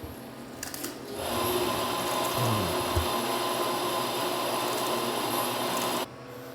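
Café coffee grinder running steadily for about five seconds, starting and stopping abruptly, as the beans for the ordered espresso drinks are ground.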